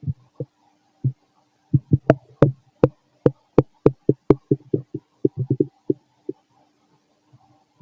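A man's stomach and intestines gurgling as he digests: a run of short pops and gurgles, with a string of sharper clicks in the middle, thinning out and stopping near the end.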